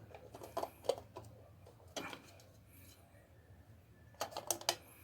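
Light clicks and taps of a plastic outlet cover plate being fitted over a wall socket: a few single clicks, then a quick cluster of several near the end.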